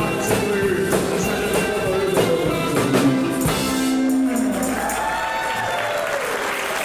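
Live rockabilly band (drums, electric guitar and upright bass) playing the last bars of a song with a steady beat, ending on a held final note about four seconds in. Audience applause and cheering follow.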